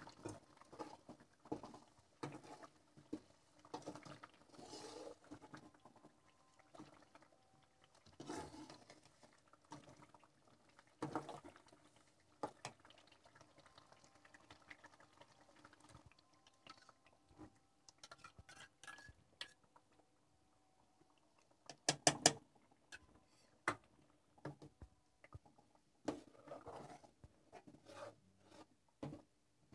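Metal spatula scraping and knocking against a metal kadhai as potatoes are stirred and fried in masala, in irregular scrapes and clicks, with a brief cluster of sharper knocks about two thirds of the way through.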